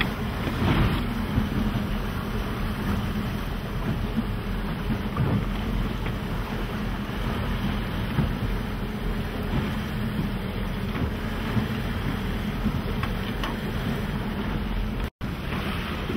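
Steady rumbling wash of wind and waves around a tour boat on open water, with the low hum of the boat's engine underneath. The sound drops out abruptly for a moment near the end.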